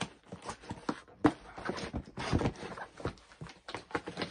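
Irregular knocks, taps and rustles of a gift box and its packaging being handled and opened by hand.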